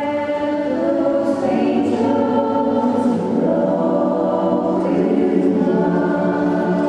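Women's choir singing in harmony, several voice parts holding sustained chords that shift every second or two.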